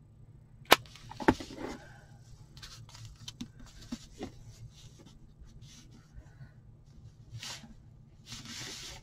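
Two sharp knocks about a second in, then soft rustling and scraping of felt being folded and pressed by hand onto an egg-shaped board, over a low steady hum.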